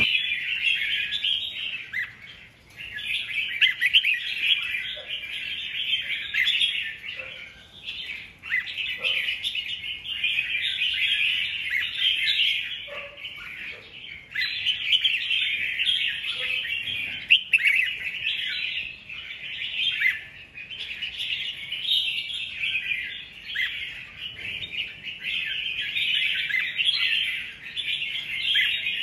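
Red-whiskered bulbuls chirping and singing in a dense, almost unbroken twitter, with a few brief lulls.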